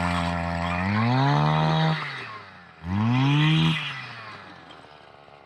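Motorised ice auger revving up hard twice, its pitch climbing and then dropping each time, before winding down and fading as the throttle is released.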